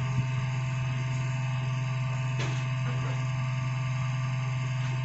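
Desktop computer running, its cooling fans giving a steady hum, with a light click about two and a half seconds in.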